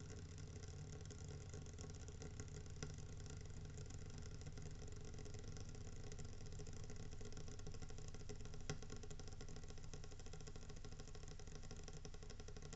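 Koln 80-litre electric water heater with dry heating elements crackling and sizzling from its lower section, like something frying in a pan, with a couple of sharper clicks. It is a fault noise that keeps going for a while after the heater is switched off, slowly dying away.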